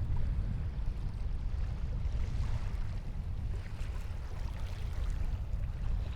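Wind buffeting the microphone in a steady low rumble, with water washing along the hull of a small sailboat under way.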